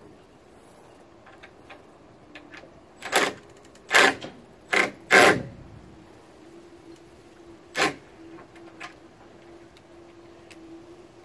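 A cordless drill-driver run in five short bursts, driving in screws.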